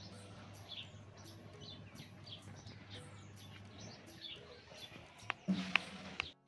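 Faint, scattered chirps of small birds, with a steady low hum underneath. Near the end come a couple of sharp clicks and a short low sound.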